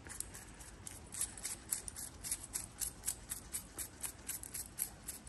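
A quick, even run of light, sharp clicks, about five a second.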